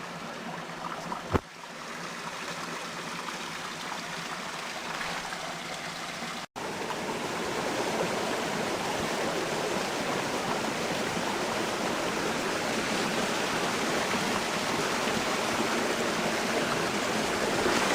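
Steady rush of a flowing mountain stream. A sharp click comes about a second and a half in, and the sound cuts out for an instant about six and a half seconds in, after which the water is louder.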